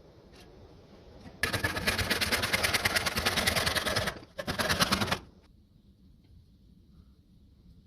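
A workshop power tool running in two bursts with a fast, even rattle: about two and a half seconds, a brief break, then just under a second more.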